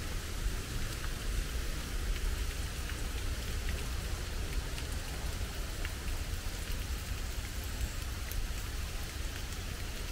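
Steady outdoor ambience: an even hiss with scattered faint ticks and a low, uneven rumble beneath.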